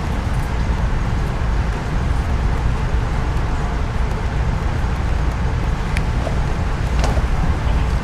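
Steady low rumble of a moving Amtrak passenger train, heard from inside the coach, with a few faint clicks about six and seven seconds in.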